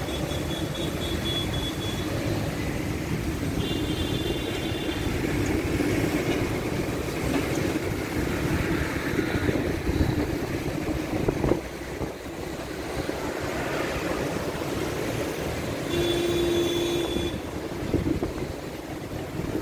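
Steady city road-traffic noise along a busy avenue, heard from a moving bicycle. Three brief high-pitched tones stand out: near the start, about four seconds in, and near the end.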